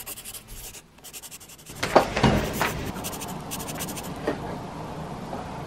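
Fabric rustling and scraping from bedding and curtains being handled, with a sharper knock about two seconds in.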